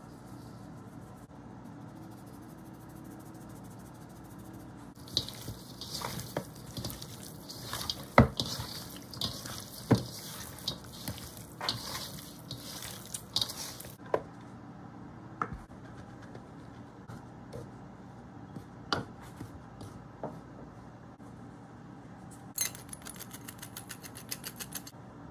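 Raw chicken wings being tossed and mixed by hand in a stainless steel bowl: wet squishing with sharp knocks against the bowl, busiest for about ten seconds, then thinning to scattered clicks. Near the end comes a quick run of rapid, even ticks.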